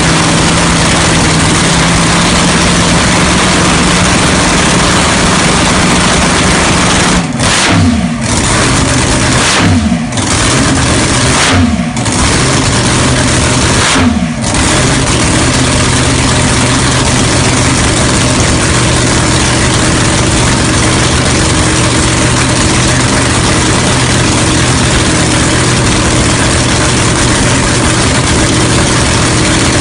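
Supercharged alcohol-fuelled 496 big-block Chevy dragster engine running loud and steady on its first fire-up. Four quick throttle blips between about seven and fifteen seconds in, each note falling back down, then it settles into a steady, slightly lower idle.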